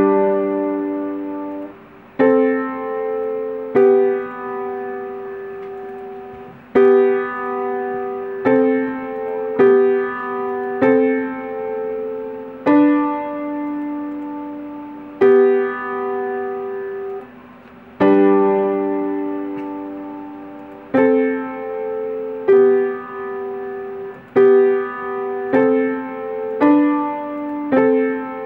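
Upright piano played slowly in practice: single notes and simple chords struck about every second or two, each left to ring and fade, with brief halts between phrases.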